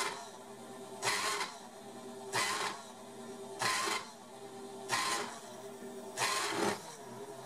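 End mill on a small MAXNC CNC mill cutting a slot in brass, with the spindle belt-driven by a treadmill motor. A steady motor hum runs throughout, and a loud burst of cutting noise comes about every 1.3 seconds as the cutter bites into the brass.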